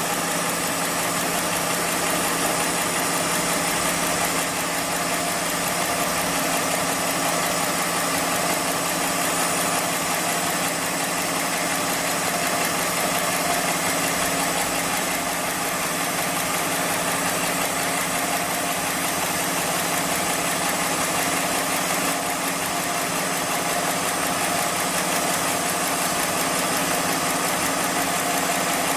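Heavy-duty programmable pattern sewing machine for thick webbing running steadily, a constant mechanical hum and clatter that does not let up.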